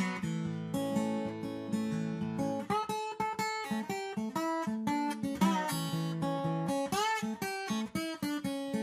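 Background music played on guitar: a steady run of plucked and strummed notes, with a few notes bent in pitch.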